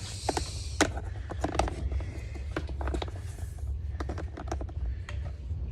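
Power cord being wound around the plastic cord wrap on a Ridgid NXT wet/dry vac's handle: irregular light clicks and knocks of cord against plastic, with a brief rustle near the start, over a steady low rumble.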